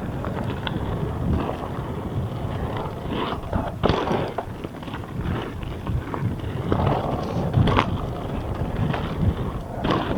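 Full-suspension mountain bike riding fast down a rough dirt trail: steady rumble of tyres and rattling bike, with sharp knocks from hits over bumps, and wind on the microphone.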